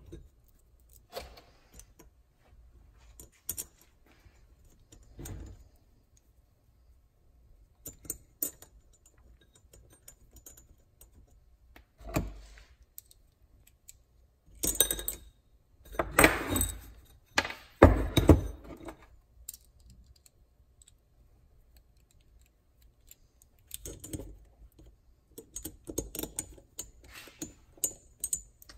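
Small steel bolts and a nut driver clicking and clinking against a bronze pump housing as new bolts are started and run into their holes. The clinks come irregularly with quiet gaps between, and a louder burst of rattling falls about midway.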